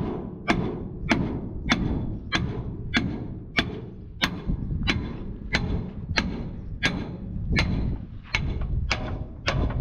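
A hammer striking metal in steady repeated blows, about one every 0.6 seconds, each with a short ring, over a low steady rumble.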